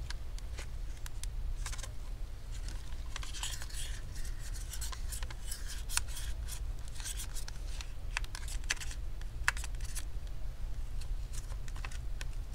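Thin metal pry tool scraping and clicking along the seam between a laptop LCD panel and its plastic lid frame, in irregular short scratches and ticks, over a steady low hum.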